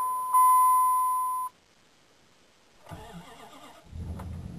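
A steady electronic beep cuts off about a second and a half in; after a short pause the 2002 Dodge Ram's 5.9 V8 cranks on the starter for about a second and catches near four seconds in, settling into a low, even idle. It is a cold start at about 19°F, and the engine fires readily.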